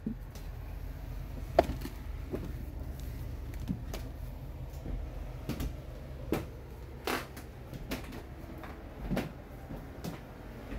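Footsteps and irregular knocks, about ten over the span, as a person in safety boots walks and climbs through an enclosed free-fall lifeboat, heard over a low steady hum.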